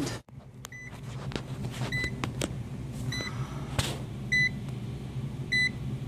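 Steady low hum of the rooftop HVAC unit's running equipment, with a short, high electronic beep repeating about every second and a quarter, and a few light clicks from the meter leads being handled.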